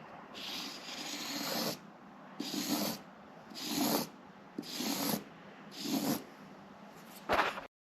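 A person breathing hard close to the microphone, about six breaths roughly a second apart.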